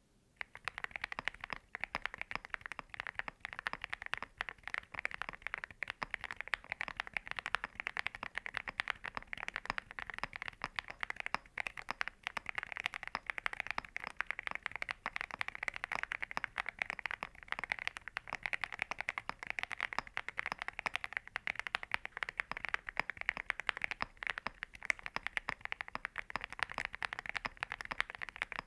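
Continuous fast typing on a mechanical keyboard fitted with Cerakey ceramic keycaps: a dense, unbroken stream of keystroke clacks.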